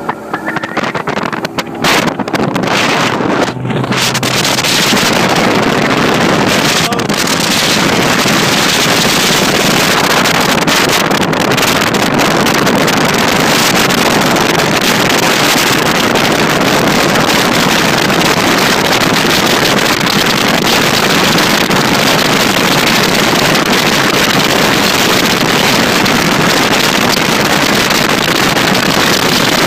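Bass boat with a Mercury outboard running fast on plane, wind buffeting the phone's microphone. The noise builds over the first few seconds, then holds steady.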